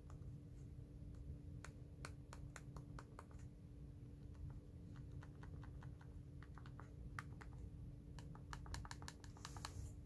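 Buttons on the 24-key remote of an RGB LED strip controller being pressed over and over: faint, irregular clicks, coming in quick runs about halfway through and again near the end.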